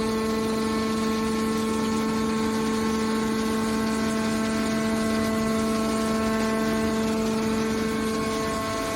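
Horizontal hydraulic metal baler's power unit running steadily: a constant whine with even overtones over a machine hum, no change in pitch.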